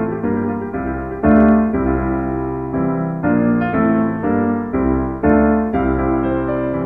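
Background piano music, with notes and chords struck about twice a second in a steady flow.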